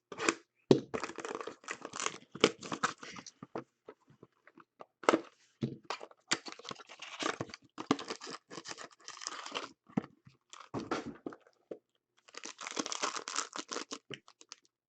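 Hockey card pack wrappers being torn open and crinkled by hand, in irregular crackly bursts with a denser stretch of crinkling near the end.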